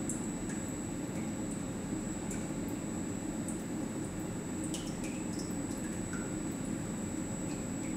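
Watson-Marlow peristaltic chlorine dosing pump running through a calibration draw: a steady low hum with faint, irregular small drips and squishy ticks of liquid.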